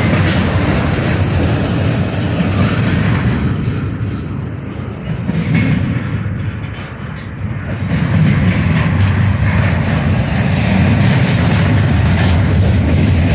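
Double-stack intermodal freight train rolling past close by: a steady rumble of the container well cars' wheels on the rails, easing off for a few seconds midway before swelling again.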